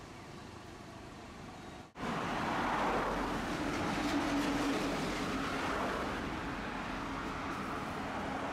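Steady running noise of a streetcar and road traffic. The sound jumps abruptly louder about two seconds in, and a faint steady motor tone is held for a few seconds after that.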